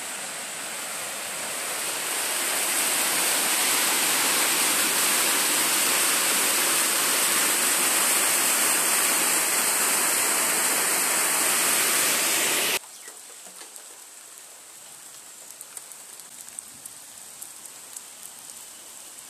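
Muddy floodwater rushing and pouring over a road in heavy rain: a loud, steady rush that builds over the first couple of seconds. About two-thirds of the way through it cuts off abruptly, leaving a much fainter rush of water with scattered light ticks.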